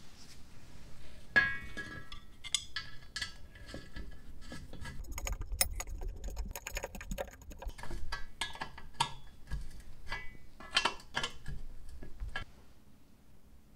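Metal fittings clinking and clicking against the brass tank of a blowtorch as its pump tube and bracket are fitted on, with a ringing metallic clink about a second and a half in.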